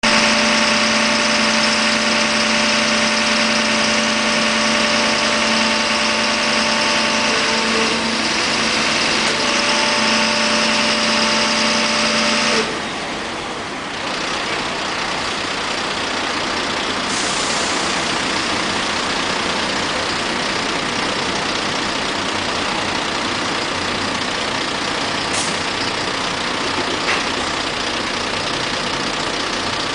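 Loud, steady mechanical noise with a steady hum of several tones over it. The hum cuts off suddenly about thirteen seconds in while the noise carries on.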